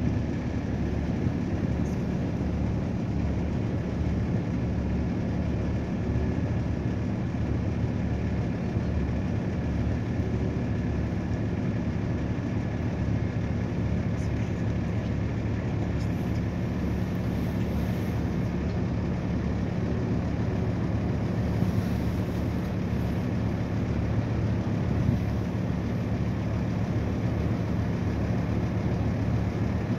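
River passenger boat's engine running with a steady low drone under a constant hiss, heard from the open deck while under way.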